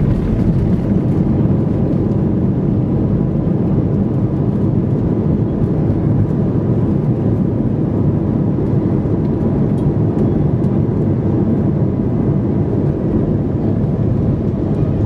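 Steady low rumble of an Airbus A320's engines and wheels, heard inside the cabin as the airliner rolls along the runway after touchdown, with a faint steady tone over it.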